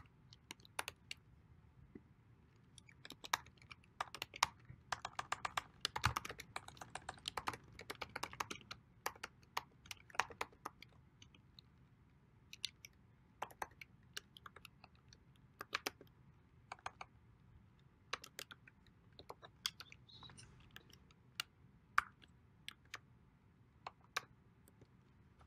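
Typing on a computer keyboard: irregular key clicks, with a fast run of keystrokes about five to eleven seconds in, then slower, scattered keystrokes.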